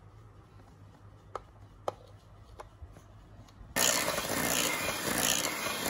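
A few faint taps, then about four seconds in an electric hand mixer starts up and runs steadily, its beaters whipping cake batter in a steel bowl.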